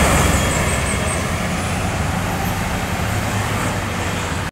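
A large tour bus passing close by: a deep engine rumble and road noise that slowly fade as it goes.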